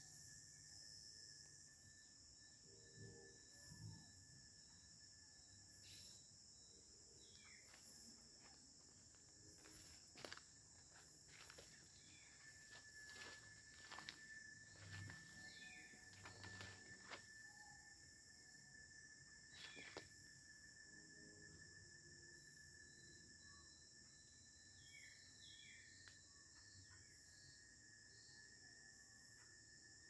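Faint evening insect chorus: a steady high buzz with a thinner steady tone beneath it, throughout. Scattered soft clicks and crunches, footsteps on dry leaf litter, come and go.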